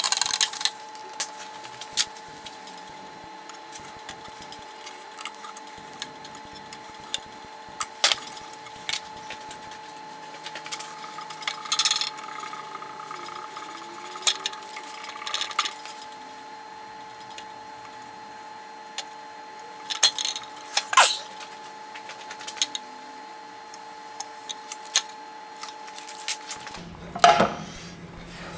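Light handling sounds of 3M VHB double-sided tape being laid on stainless sheet metal and its liner worked loose: scattered small clicks and taps, with a few brief rustles of the tape and liner. A faint steady hum runs underneath.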